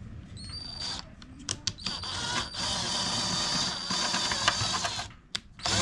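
FERM 20 V cordless drill drilling out a number-plate rivet: a short burst, then a steady run of about three seconds with a high motor whine, stopping about five seconds in.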